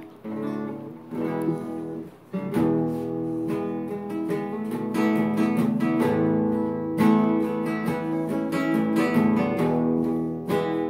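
Classical guitar being played solo: picked chords at first, a brief pause about two seconds in, then fuller strummed chords with a steady rhythm for the rest.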